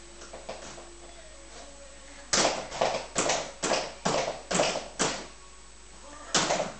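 A rapid series of about seven knocks, roughly two a second, starting a little over two seconds in, then one more knock near the end.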